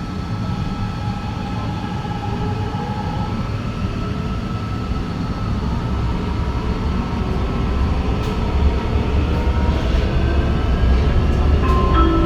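Fuzhou Metro Line 6 Type B electric train running and gathering speed. The traction motors give a whine of several tones that climbs steadily in pitch over a low running rumble that grows slowly louder.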